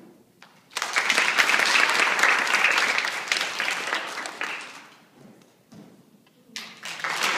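A crowd of children clapping: applause swells about a second in, dies away around the middle, then starts again near the end.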